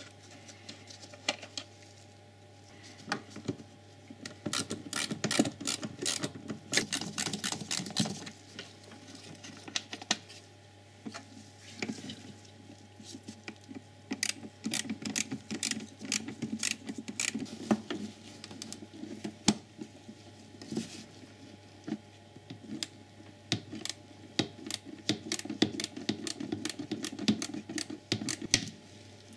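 Bursts of rapid light clicking and rattling: a ratchet driver undoing small size 8 hex-head screws and the screws and plastic ECU box lid being handled.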